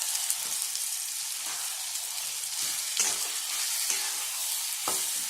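Chicken pieces frying in a pan with onions and tomatoes: a steady sizzle, with a spoon scraping and knocking against the pan every so often as it is stirred.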